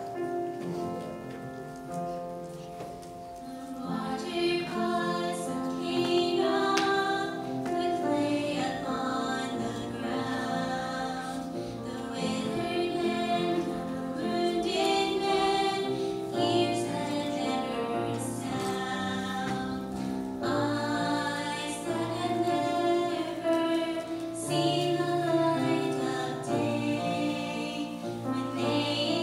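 Women singing a Christian song together over an instrumental accompaniment. The first few seconds are the instrumental introduction, and the voices come in about four seconds in.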